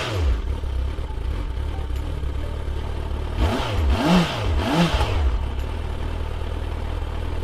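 Motorcycle engine idling, with a throttle blip at the start and three quick blips about three to five seconds in, each rising and falling in pitch before it settles back to a steady idle.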